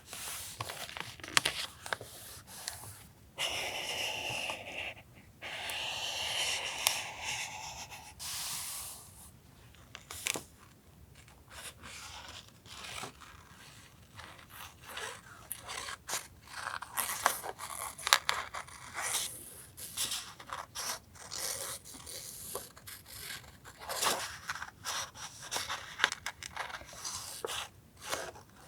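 Paper being handled for a journal collage: rustling, sliding and scraping over the desk, with many small taps and ticks. Longer stretches of scraping come between about 3 and 8 seconds in.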